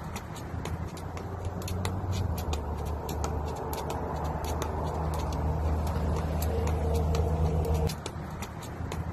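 Skipping rope slapping the ground in a quick series of sharp clicks, about two to three a second, over a steady low motor hum that cuts out briefly near the end.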